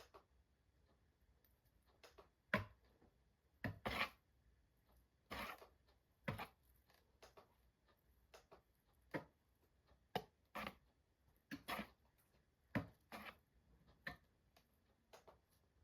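Faint light taps and knocks on a hard surface, irregular, about one a second.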